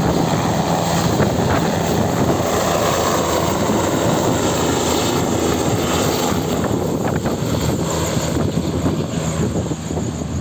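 Two-bladed light helicopter lifting off and flying away, its rotor and engine running steadily and loud, then fading over the last couple of seconds as it climbs away.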